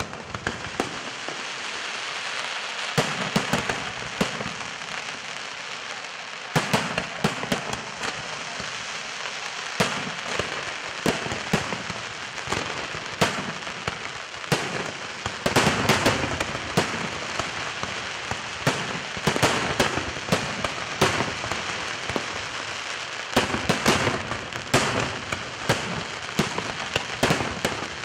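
Aerial fireworks display: shells bursting in rapid, irregular bangs over a continuous crackle, the bangs coming thickest about halfway through and again over the last few seconds.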